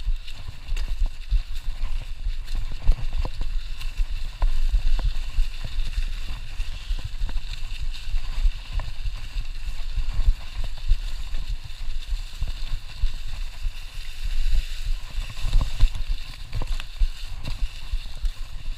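Bicycle rolling over a thick carpet of dry fallen leaves: a steady rustle of leaves under the tyres over a constant low rumble, with many small knocks and rattles as the bike goes over bumps.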